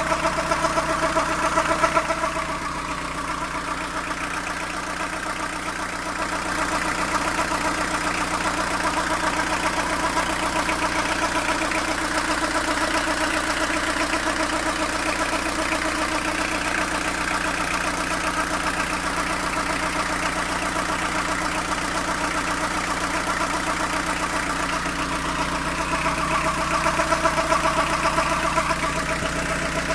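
Fiat Ducato van engine idling warm, with the steady noise from the belt side of the engine that comes only at warm idle. An extra tone stands out at the start and again in the last few seconds.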